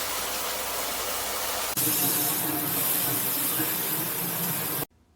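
Water spraying from a shower head, a steady hiss. About two seconds in it jumps to a louder, brighter spray, and it cuts off abruptly near the end.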